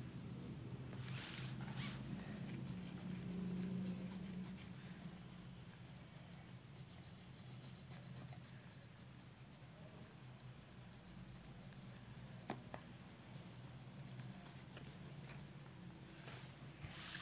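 Coloured pencil scratching softly on paper as a coloring-book drawing is shaded in, over a faint steady low hum. A single light click about two-thirds of the way through.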